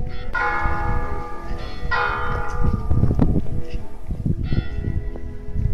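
A church bell tolling: three strokes, the first two about a second and a half apart and the third weaker, each ringing on after the strike, over a low rumble.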